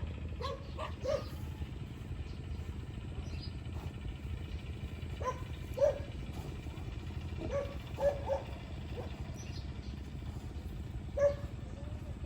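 Short animal calls every few seconds, some in quick pairs, over a steady low rumble.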